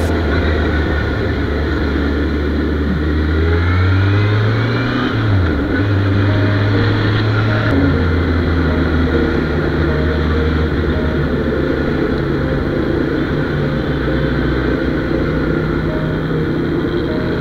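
Kawasaki Z800 inline-four motorcycle engine running at low speed. The revs rise about four seconds in, dip briefly, then settle to a steady lower note about eight seconds in.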